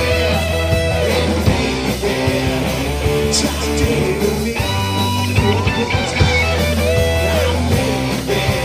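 Live rock band playing: electric guitars over bass guitar and drums.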